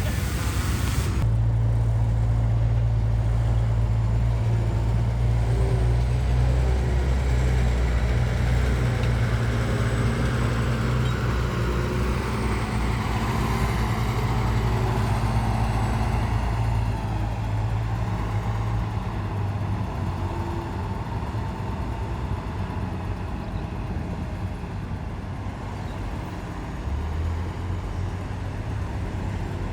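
Heavy diesel earthmoving machinery running under load with a deep, steady engine drone. It eases off a little past halfway and picks up again near the end.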